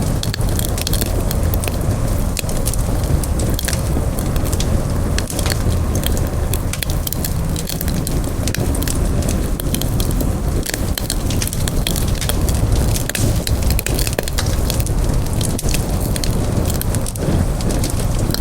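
Campfire burning with frequent sharp crackles and pops over a steady low rumble of flames.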